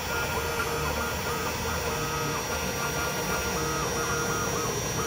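Small 4-axis CNC milling machine running: a whine from its motors that shifts up and down in pitch as the axes move, over a steady high tone and a low hum.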